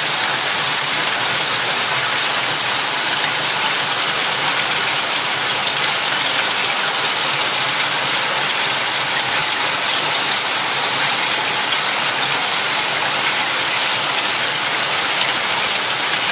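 Saltwater reef aquarium's circulating water rushing and splashing steadily, a constant hiss that is heaviest in the high end.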